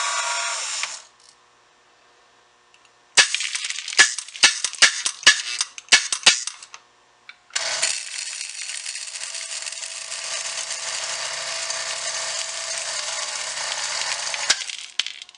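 Lionel No. 97 coal elevator's small electric motor, freshly repaired, running and stopping about a second in. After a pause come about eight sharp clicks, then a steady rattling pour of model coal down the elevator's chute into a car for about seven seconds, with a faint low hum under it, ending suddenly near the end.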